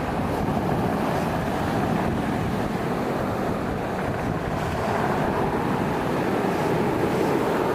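Steady rushing noise of stormy wind and sea surf, with wind buffeting the microphone.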